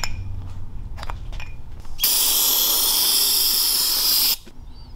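Aerosol spray cleaner hissing in one steady blast of a little over two seconds, washing grinding compound off an aluminium billet flywheel, then cutting off suddenly. Before it come a few light clicks of the part being handled.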